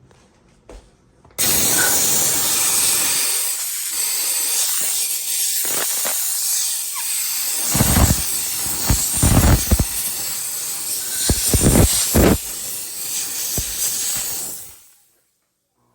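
Dupray Hill Injection steam cleaner blowing a jet of steam: a loud, steady hiss that starts about a second in, grows uneven with louder bursts partway through, and dies away near the end.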